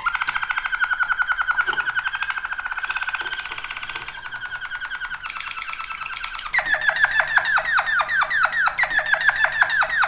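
Malinois waterslager canary song: a fast trill of rapidly repeated notes, then, about six and a half seconds in, a new phrase of quick falling notes at about five a second.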